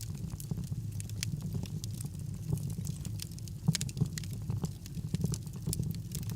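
Wood fire burning in a fireplace: a steady low rumble of flames with frequent irregular crackles and snaps, two louder pops near the middle.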